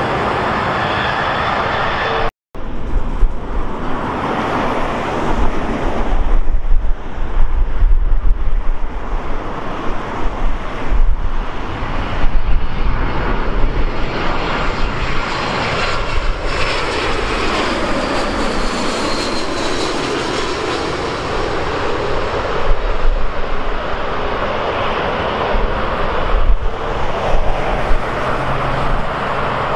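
Jet airliners on final approach and landing: a continuous jet engine roar. One aircraft passes close overhead about halfway through, with a whine that sweeps lower as it goes by. The sound cuts out briefly about two seconds in.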